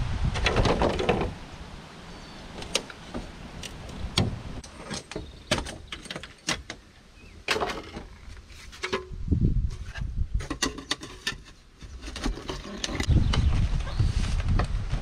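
Scattered knocks and clicks of building work as logs and a plastic sheet are handled, with low wind rumble on the microphone at the start and again near the end.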